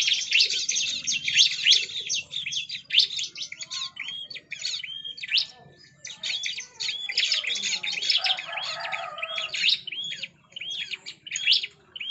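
Bar-winged prinia (ciblek) singing hard: a dense, rapid stream of high, sharp chirps and quick hooked notes, broken only by short pauses.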